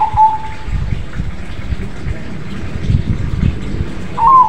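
Crossbred (krosing) zebra dove cooing its phrase twice, once at the start and again about four seconds in: each time a short bent note followed by a held note, over a steady low rumbling noise.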